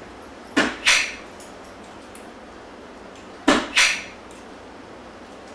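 Two soft-tip darts striking a VSPHOENIX electronic dartboard about three seconds apart. Each hit is heard as a pair of quick, sharp clicks.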